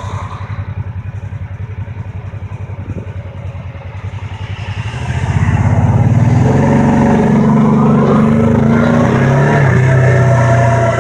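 Kawasaki Teryx S side-by-side's parallel-twin engine running at low revs with slow, even pulses, then picking up speed about five seconds in and holding a steady, louder drone.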